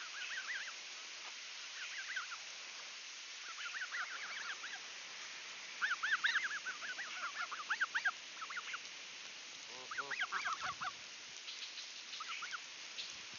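Canada goose goslings peeping: bursts of quick, high-pitched chirping calls, several clusters coming and going.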